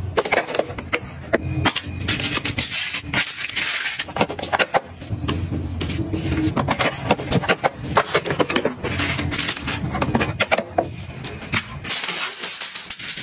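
Small household items being handled and set down: a busy run of irregular clicks, knocks and clatters, like containers and dishes touching, over a steady low hum that drops away near the end.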